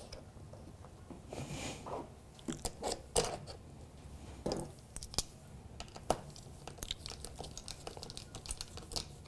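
Irregular small clicks, taps and scrapes of hand work as an inline-skate wheel, its bolt and a hex key are handled to refit the wheel onto a rolling camera case.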